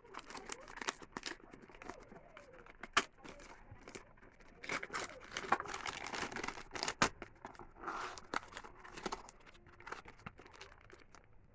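Packaging being torn open and crumpled by hand: irregular crinkling and tearing with sharp clicks and snaps, loudest at about three and seven seconds in, as a newly delivered microphone is unwrapped.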